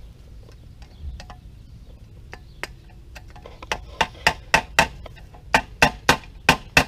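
Claw hammer tapping a screwdriver against the armored-cable fitting at the bottom of a metal electrical disconnect box, driving it tight. A few faint light taps at first, then sharp metallic strikes about three to four a second from about halfway, with a short break.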